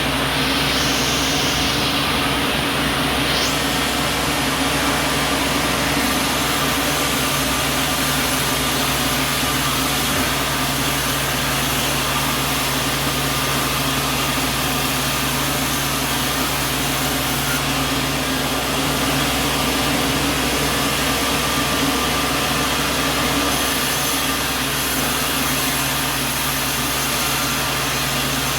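Light sawmill running steadily: an even mechanical drone with a constant low hum that holds at the same level throughout.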